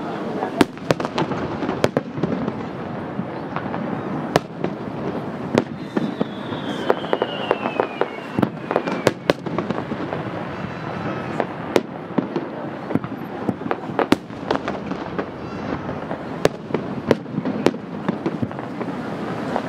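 Aerial firework shells bursting over the sea, many sharp booms at irregular intervals, with a crowd murmuring underneath. About six seconds in, a whistle slides down in pitch for a couple of seconds.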